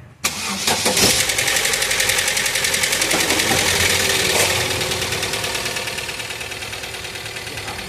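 Fiat Palio's GM 1.8 engine starting after sitting and running with a loud, rapid metallic ticking clatter that slowly eases off. It is a metal-on-metal knock from the hydraulic valve lifters, which the mechanic puts down to a lack of oil in the lifters at start-up.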